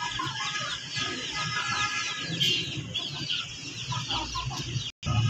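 Chickens clucking, over a rapid run of short, high peeping chirps several times a second. The sound breaks off briefly near the end.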